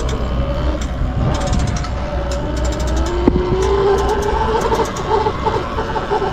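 Sur-Ron electric dirt bike under way: its motor's whine rises in pitch as it speeds up about three seconds in, then holds steady over a constant low rumble.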